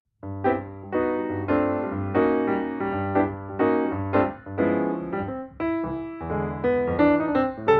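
Background piano music with repeated chords and a bouncy rhythm, cutting out briefly at the very start and coming straight back.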